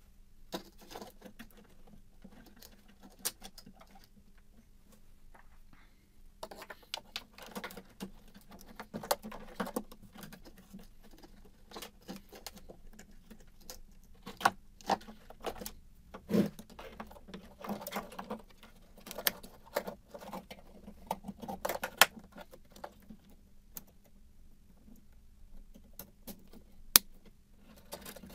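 Hands handling a plastic car headlight housing and its wiring: irregular small clicks, taps and rattles of plastic parts and wire connectors, sparse at first and much busier from about six seconds in.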